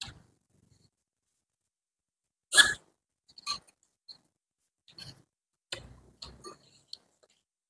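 A person eating spicy bakso soup. About two and a half seconds in there is one short, loud mouth sound, followed by scattered soft clicks and smacks of eating.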